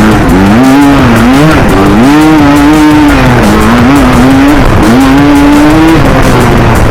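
Yamaha Banshee quad's two-stroke engine revving up and down under the rider's throttle, its pitch rising and falling again and again. It eases off for a moment about six seconds in.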